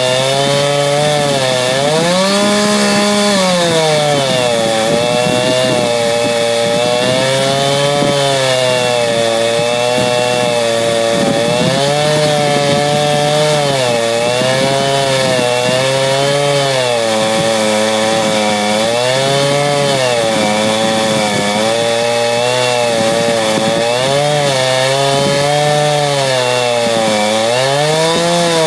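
Two-stroke chainsaw at full throttle ripping lengthwise through a log to cut a board, running steadily with its engine pitch dipping and rising again every couple of seconds as the load in the cut changes.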